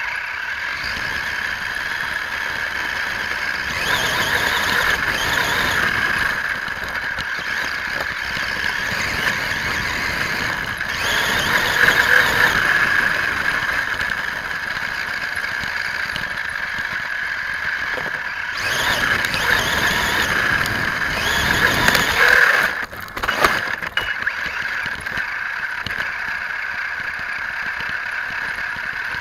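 Onboard sound of a radio-controlled off-road truck: a steady high motor whine, swelling louder and rougher with drivetrain and tyre noise in three stretches, about four, eleven and nineteen seconds in, as it drives over dirt, with a short jolting clatter near the end of the last one.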